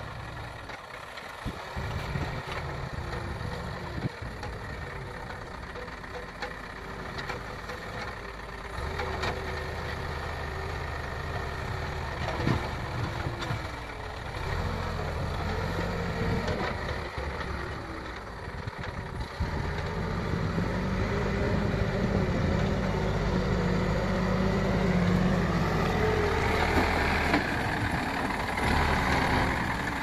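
Case 770EX backhoe loader's turbocharged 3.9-litre diesel engine running under load as the front loader bucket works, its note rising and growing louder about two-thirds of the way in. A few short knocks are heard along the way.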